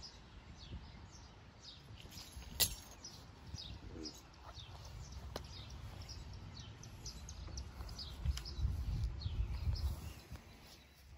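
Small birds chirping over and over in short, quick falling notes, over a low steady rumble of outdoor noise, with one sharp click about two and a half seconds in.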